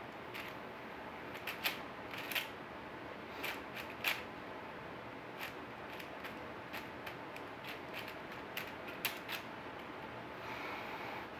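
Plastic 4x4 Rubik's Cube being turned by hand: irregular light clicks and clacks as its layers are turned and snap into place.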